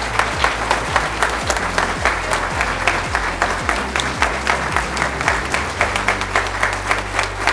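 Audience applauding, a dense, even clatter of many hands clapping.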